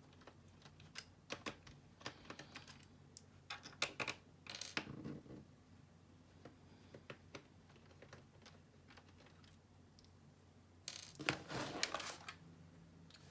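Scattered light clicks and short scrapes of a screwdriver and small screws being taken out of a laptop's plastic case, with a few brief rustling scrapes about two, four and eleven seconds in.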